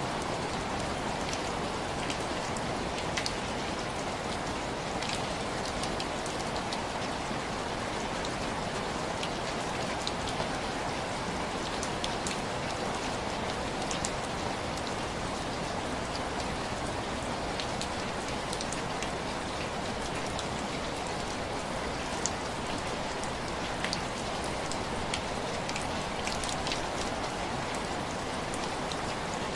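Heavy rain falling steadily as an even hiss, with many scattered short, sharp ticks throughout.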